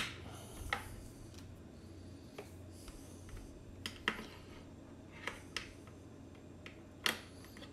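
Irregular small clicks and taps of hard plastic parts and cable connectors being handled and pushed into place, about eight in all, with the sharpest click right at the start, over a faint steady hum.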